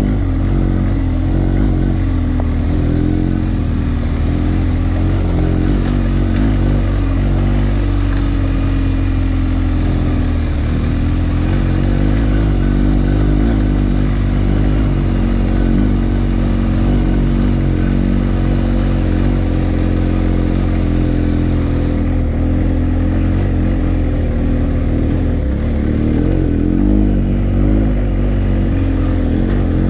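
BMW GS adventure bike's boxer-twin engine running under changing throttle on a rough dirt track, its pitch rising and falling as the rider rolls on and off.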